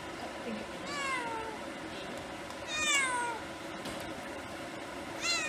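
Domestic cat meowing three times while being groomed, each meow falling in pitch; the second is the longest and loudest, and the third comes near the end.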